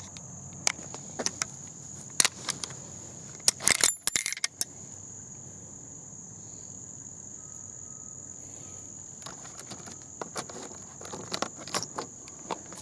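Sharp metallic clicks and clinks of gear being handled on a wooden shooting bench, loudest in a quick cluster about four seconds in and starting again near the end, over the steady high buzz of insects.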